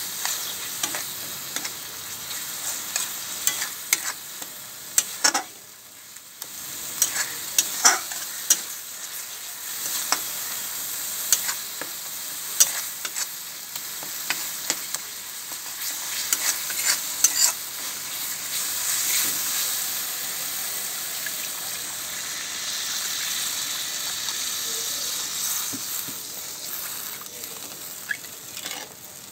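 Spiced onion-tomato masala sizzling in a metal kadai while a metal spatula stirs and scrapes it, with many sharp clicks of the spatula striking the pan. Later on the clicks thin out and the sizzle goes on steadily.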